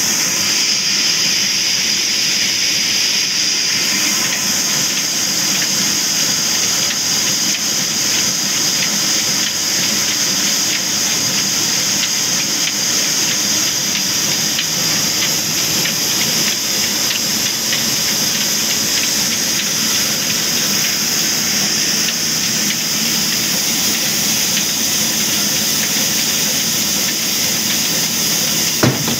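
Sawmill log-cutting band-saw machine driven by an old diesel engine, running steadily with a constant high-pitched whir. A single sharp knock comes near the end.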